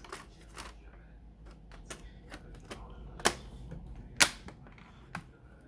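Sharp clicks and taps of plastic laptop case parts being handled and pressed together during reassembly, with two louder snaps about three and four seconds in and a lighter one near the end.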